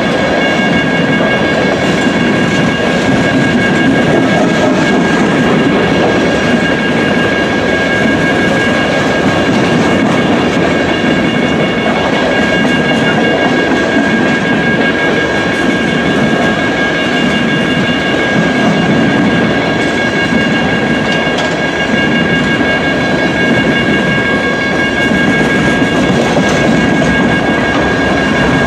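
Coal train's hopper cars rolling past close by: a loud, steady rumble of wheels on the rails, with a steady high-pitched ringing tone over it.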